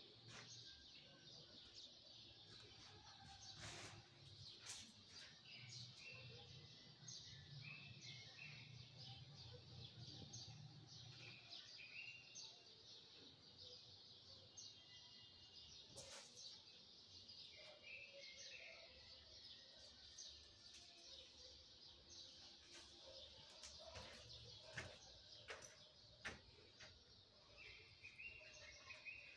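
Near silence with faint bird chirps, a few short chirps at a time, coming back every several seconds, over a steady low hiss. A few faint clicks.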